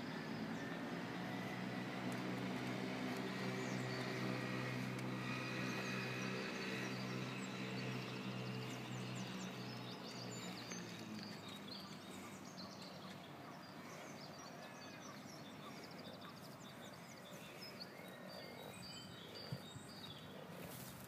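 Outdoor ambience: a steady low hum fades away about halfway through, with faint bird chirps.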